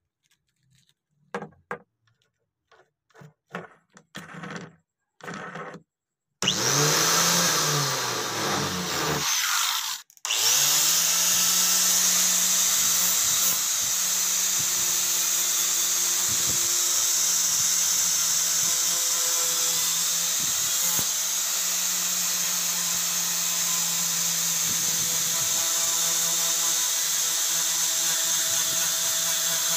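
A few clicks and knocks of the wire cup brush being handled and fitted. About six seconds in, an angle grinder starts. It cuts out briefly about ten seconds in, then runs steadily with a brass wire cup brush scrubbing rust off a cleaver blade: a steady hiss over the motor's hum.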